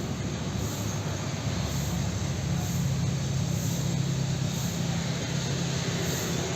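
Fairly heavy rain falling, a steady hiss, with a low rumble underneath that grows louder for a few seconds in the middle.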